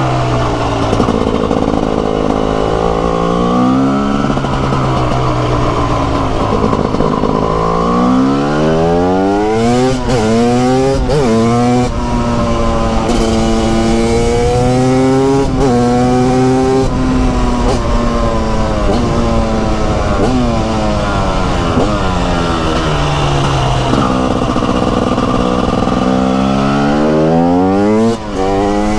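TM SMR 300 supermoto's 300 cc two-stroke single-cylinder engine under riding load, the revs climbing in steps as it is pulled up through several gears about a third of the way in, then winding down through a long deceleration before pulling up through the gears again near the end.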